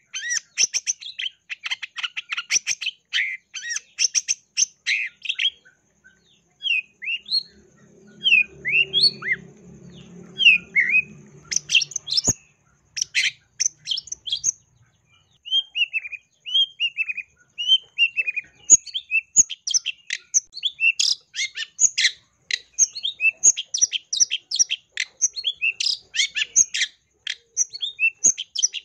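Long-tailed shrike (cendet) singing a varied mimicking 'isian' song: fast scratchy chattering runs alternate with short slurred whistled notes, and the chatter grows dense and continuous from about two-thirds of the way in. A faint low rumble sits under the whistles for a few seconds near the middle.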